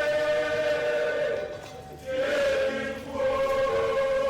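Background music with choral singing in long held notes, with a brief break about two seconds in before the next note.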